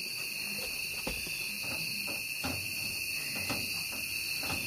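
Steady high-pitched chorus of night insects such as crickets, holding two even pitches, with a few faint soft clicks.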